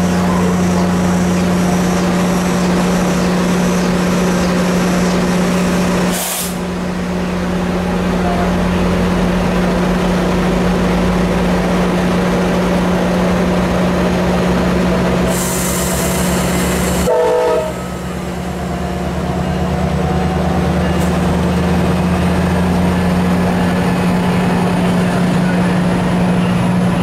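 Virginia Railway Express commuter train close by, with a steady low engine drone throughout. There is a short burst of hiss about two-thirds through, and the sound dips suddenly twice.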